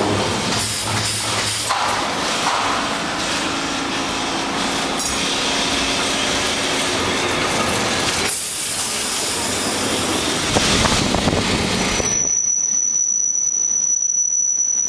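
An old Lisbon tram (Remodelado type) running on street rails, heard from on board: a steady rumble and rattle of wheels on track, with a few louder clatters about two-thirds of the way through.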